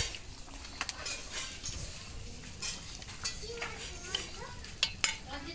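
Metal ladle scooping chicken curry out of a steel pot, clinking sharply against the pot several times with the wet sound of the gravy being stirred.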